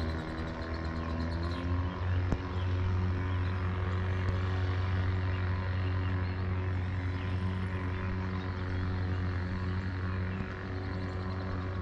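Motorboat engine running at idle speed, a steady low hum with a pitch that shifts slightly about two seconds in. Faint bird chirps come through near the end.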